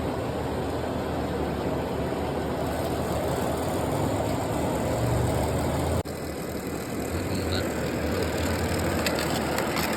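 Robot vacuum running with a steady motor and brush hum. The sound cuts off sharply about six seconds in and picks up again a little quieter, with a few short clicks near the end.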